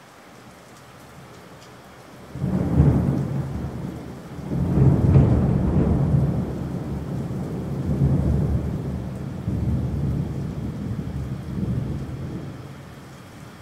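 Steady rain with a long roll of thunder. The thunder breaks in suddenly about two seconds in, rumbles and swells several times, then dies away near the end.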